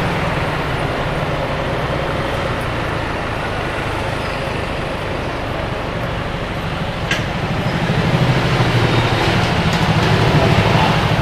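Motorbike engine running steadily under wind and road noise in traffic. From about eight seconds in the sound grows louder and busier as the bike rolls in among other motorbikes under a metal roof, with a single click just before.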